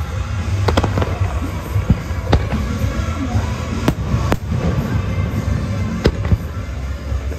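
Fireworks bursting in a show, with sharp bangs every second or two over loud accompanying music.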